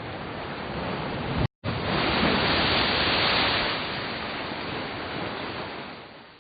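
Ocean surf: a steady rushing wash of waves, broken by a brief dropout about a second and a half in, after which a wave swells louder and eases back before the sound fades out at the end.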